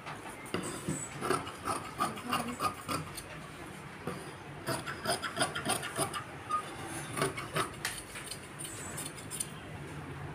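Tailor's scissors cutting through blouse cloth on the cutting table: short runs of rasping snips with brief pauses between them.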